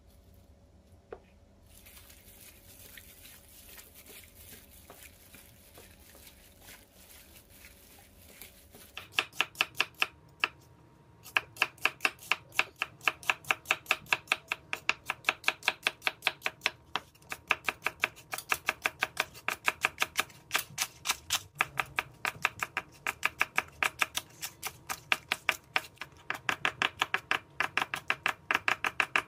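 Chef's knife chopping onion and then green chillies on a bamboo cutting board: rapid, even knocks of the blade hitting the board, about three to four a second. The chopping starts about a third of the way in, after a faint hiss.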